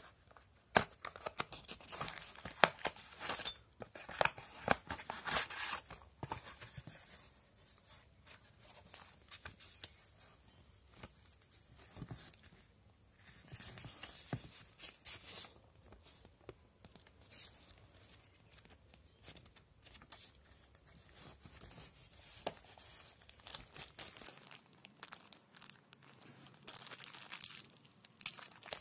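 Cardboard box and paper packaging being opened and handled: irregular scrapes, clicks and rustles, loudest in the first few seconds. Near the end comes the crinkle of a small plastic bag of toy parts being opened.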